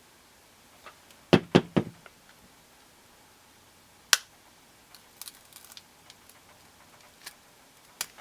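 Sharp plastic clicks and snaps as a plastic opening tool pries the broken front glass panel off a second-generation iPod touch, the last retaining clips letting go. Three quick loud snaps come about a second in, another around four seconds, then lighter ticks and a final snap near the end.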